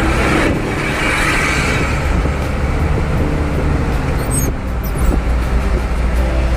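Steady engine and road noise heard from inside the cab of a vehicle cruising on a highway: a deep, constant low drone under a broad rush of tyre and wind noise.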